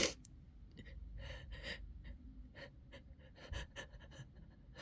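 A person's short breathy gasps and sniffs, coming quicker about three and a half seconds in: the catching breaths of a sneeze building up.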